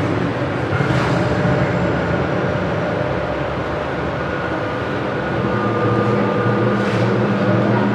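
Recorded soundtrack for a mime act, played over the hall's speakers: steady held low tones under an even rushing noise, with short brighter swells about a second in and again near the end.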